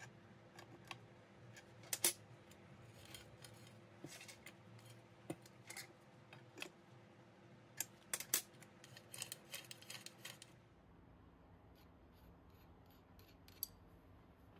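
Steel combination spanner clicking and clinking against a nut as it tightens the bolt on a trolley jack's wheel bracket, with the sharpest metal clinks about two seconds in and around eight seconds in. After about ten seconds only a few faint clicks remain.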